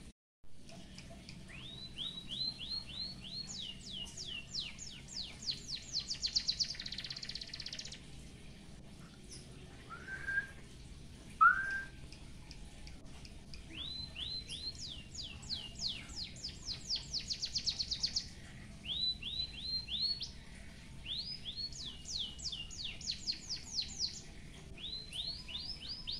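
White-headed munia (emprit haji) singing a canary-style song: series of rapid, high, downward-sweeping notes run together into trills, repeated phrase after phrase. Two lower, shorter notes stand out about ten and eleven seconds in, the second the loudest sound.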